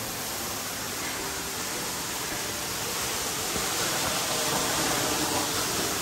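Waterfall crashing down onto rocks: a steady rushing of falling water that grows a little louder toward the end.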